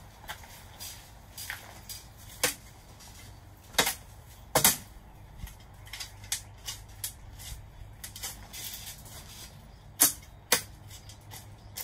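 A shovel mixing peat moss into compost dirt in a wheelbarrow: the blade scrapes through the soil and knocks against the tub in irregular sharp strikes. The loudest knocks come about two and a half seconds in, twice around four to five seconds, and twice near ten seconds.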